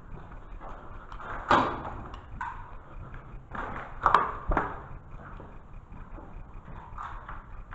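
Airsoft pistol shots exchanged in a bare concrete stairwell: three sharp cracks with a short echo, about one and a half, four and four and a half seconds in, among a few fainter knocks.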